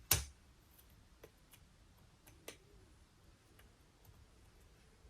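One sharp metallic click just after the start, then a few faint ticks: circlip pliers being worked against the brake master cylinder's circlip.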